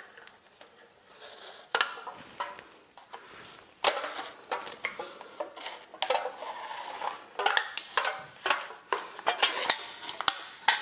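Kitchen knife cutting pastry around a foil pie cup, its blade giving irregular sharp clicks and scrapes against the foil and the stone countertop, busier in the second half.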